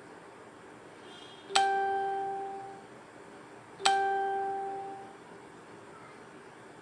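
Two bell-like chime strikes a little over two seconds apart, each starting sharply and ringing down over about a second.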